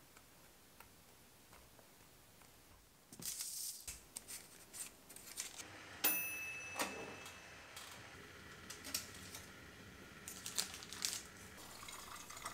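Handling a Cuisinart countertop air fryer oven: a short scraping clatter about three seconds in, a sharp clink with a brief metallic ring about six seconds in, then scattered clicks and knocks.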